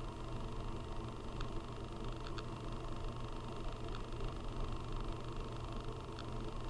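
Steady low room hum with a few faint short clicks spread through it.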